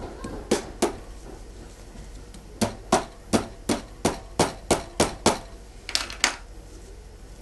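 A series of sharp taps on a hard surface: two about half a second in, a quick run of about nine at roughly three a second, then two more near the end. No sewing-machine motor is heard running.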